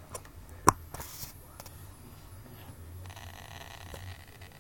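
A sharp click just under a second in and small handling clicks, then from about three seconds in a faint steady electronic tone from the EZRun brushless motor and ESC. This is the beep that signals the ESC is entering programming mode while the set button is held.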